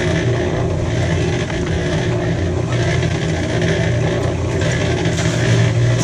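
Small portable electric cement mixer running, its drum turning and churning wet concrete mix with a steady motor hum and a gritty rumble.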